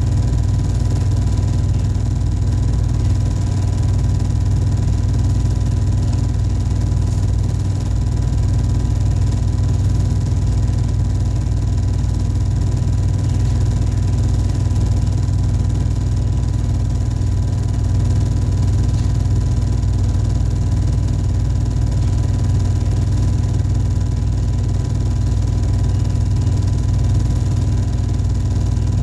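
Small-gauge home-movie film projector running: a steady motor whir and hum with a thin steady tone, unchanging throughout.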